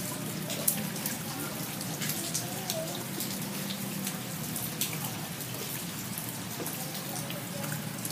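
Steady rain falling on paved ground, with many sharp drop hits scattered throughout.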